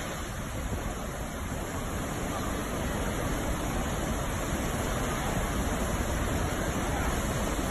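Muddy floodwater pouring over a wide rocky waterfall, a steady, unbroken rush of water.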